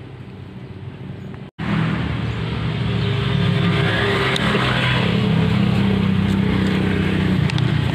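A small engine running steadily, with a brief dropout about a second and a half in, after which it is louder.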